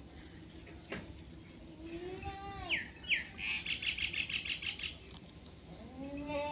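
A young goat bleats twice, about two seconds in and again near the end. Between the bleats a small bird gives two quick falling chirps and then a fast run of chirps, the loudest sound here.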